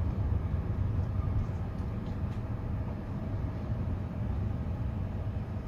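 Steady low rumble of a Hyundai Creta's engine and tyres heard inside the cabin, creeping slowly at about 20 km/h with the engine just above 1,000 rpm.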